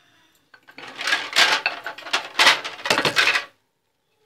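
Metal kitchen utensils and cookware clattering and clinking against each other, a dense run of clanks lasting about three seconds.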